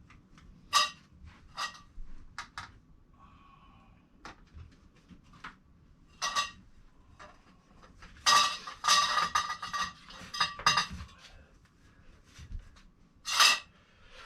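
Metal greenhouse-frame poles clinking and knocking as they are handled and fitted into their connectors, each strike ringing briefly. A scattered handful of clinks, then a quick flurry of rattling clinks about eight seconds in, and one last sharp clink near the end.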